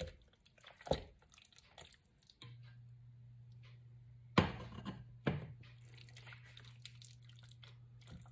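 Raw chicken pieces being put into a pot of masala sauce: wet squelching and crackling, with two sharp knocks against the pot about halfway through. A low steady hum starts a couple of seconds in.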